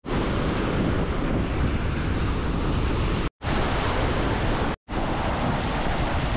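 Sea surf breaking and washing up the beach, mixed with strong wind buffeting the microphone. The sound drops out for an instant twice, a little after three seconds and near five seconds in.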